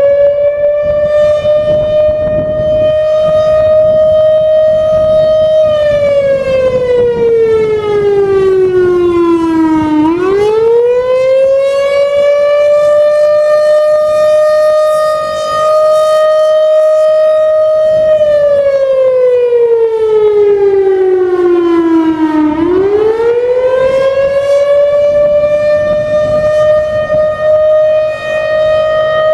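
Federal Signal Thunderbolt 1000 outdoor warning siren sounding the attack signal. A loud wail holds a steady pitch, slides down over a few seconds, then climbs back and holds again, twice.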